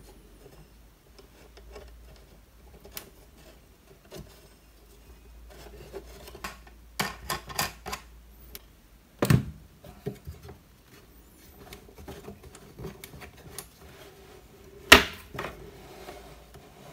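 Wooden parts of an oiled-beechwood table easel clicking and knocking as it is folded and adjusted by hand: a run of sharp clicks around the middle, a dull thump a couple of seconds later, and a loud sharp knock near the end.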